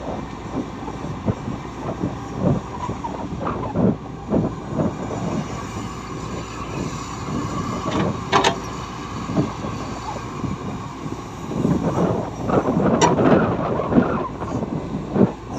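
Heavy earthmoving machinery at work: a diesel engine running steadily under many irregular knocks and metal clanks. There are two sharp bangs about halfway through and near the end, and a dense stretch of clattering shortly before the end.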